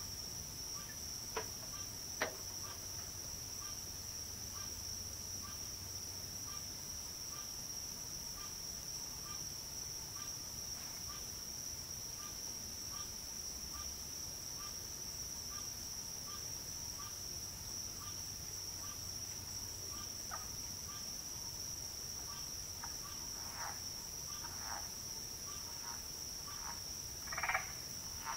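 Night insect chorus: crickets trilling in one steady high-pitched band, with a lower pip repeating about once a second. Two sharp clicks come in the first few seconds, and a handful of louder, lower calls from some other animal build to the loudest one near the end.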